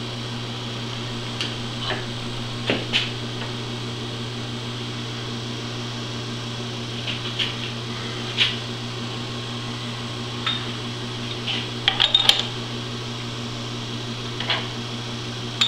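Milling machine running with a steady hum. Scattered sharp metal clicks and taps from the tooling and workpiece sound over it, with a quick cluster about twelve seconds in.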